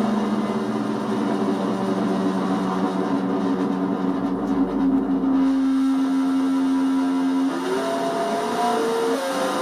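Analog synthesizer tones from a 555-timer keyboard used as pseudo control voltage for a synth module: a held electronic tone with several pitches layered, which slides upward and breaks into shifting pitches near the end.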